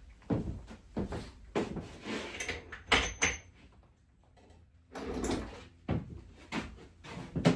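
Irregular knocks and clunks of metal engine parts and tools being handled during a motorcycle engine teardown, with a brief metallic ring about three seconds in.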